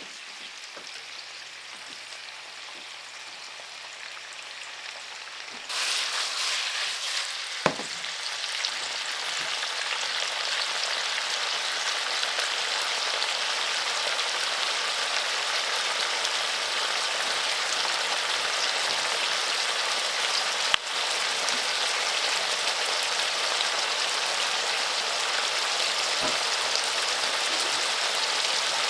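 Tofu and roast meat stir-frying in a hot pan, sizzling steadily. The sizzle jumps suddenly louder about six seconds in. A couple of sharp clicks come from a utensil on the pan.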